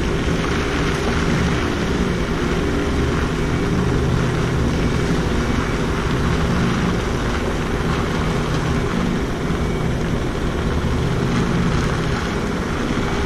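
Heavy truck's diesel engine running steadily at low revs, a constant low hum with no revving.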